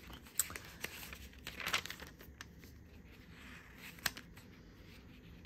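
Pages of an A5 Hobonichi Cousin planner being turned by hand: soft rustling and crinkling of thin paper with printed photos and stickers stuck on, with a few short clicks.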